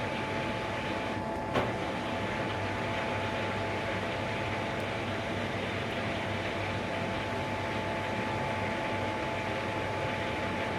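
Hoover AXI washer dryer running a high-heat drying cycle: a steady hum of the drum turning and the drying fan, with a faint steady whine. A single click about a second and a half in.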